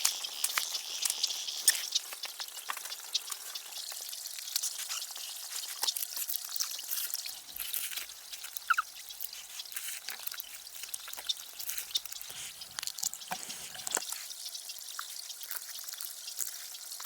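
Water dripping and trickling: many irregular sharp drops over a steady hiss.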